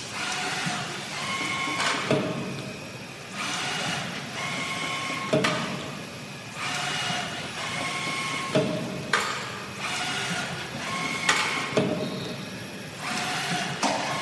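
Skiving machine cutting fins from an aluminium heat-sink block, working in a repeating cycle about every three seconds: a sharp knock as each stroke begins, then a steady machine whine.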